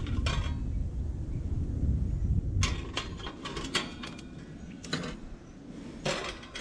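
Wire rack being slid and seated into a portable smoker's metal box, clicking and rattling metal on metal about half a dozen times. A low rumble runs under the first couple of seconds.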